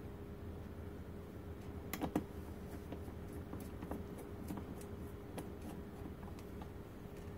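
Light metallic clicks and taps of a mortise lock cartridge's small parts being handled and fitted together, with two louder clicks about two seconds in, over a steady low hum.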